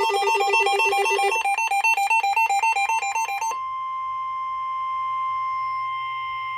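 Electronic alert tones warble rapidly between two pitches, then switch to a faster pulsing pattern about a second and a half in. About three and a half seconds in they give way to the steady single-pitch 1050 Hz NOAA Weather Radio alert tone, which signals that an alert message follows.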